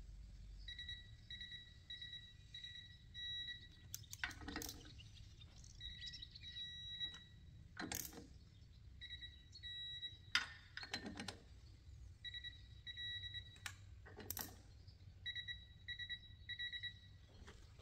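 Socket ratchet and tool clinks on the clutch pressure plate bolts of a VW Beetle flat-four, the bolts being tightened in a cross pattern: scattered sharp metallic clicks and knocks. A high, steady-pitched beeping comes and goes in short runs throughout.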